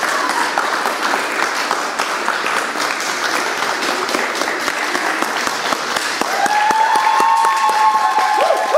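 Audience applauding with steady clapping. About six seconds in, a high voice calls out over the clapping in one long held cry.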